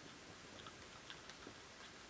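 Faint, irregular clicks of wild boar piglets chewing as they feed, over a steady low hiss.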